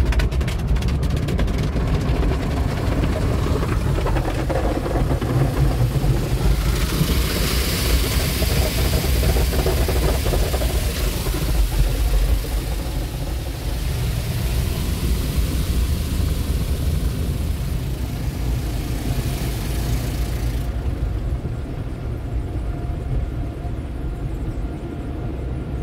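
PECO tunnel car wash heard from inside the car's cabin: a steady low rumble of the machinery and cloth wraps working over the car. A loud hiss of water spray on the car starts about seven seconds in and cuts off about twenty seconds in, leaving a quieter rumble as the windshield is covered in foam.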